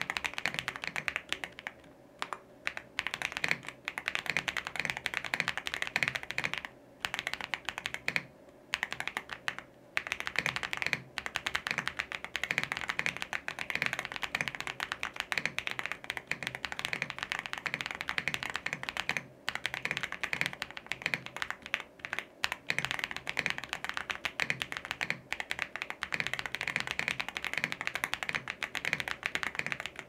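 Fast, continuous typing on a mechanical keyboard fitted with Akko Cream Blue V3 Pro switches (factory-lubed tactile switches with a polycarbonate top and nylon bottom housing) and double-shot PBT keycaps. A few short pauses break the typing.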